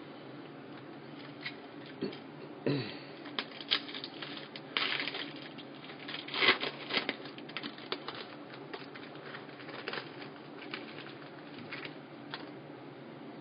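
A trading card pack wrapper being torn open and crinkled, with cards handled and slid against each other in a run of irregular crackles and clicks, loudest about halfway through.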